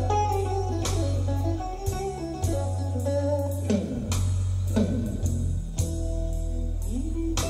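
Recorded guitar music with a steady bass line, played back over a large hi-fi loudspeaker system in the room. Several of the guitar notes slide or bend in pitch.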